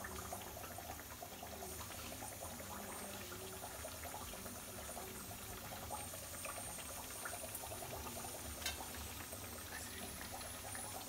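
Thekua dough pieces frying in ghee in a steel kadhai: a soft, steady sizzle of fine crackling bubbles. The ghee is kept only moderately hot so the thekua fry slowly.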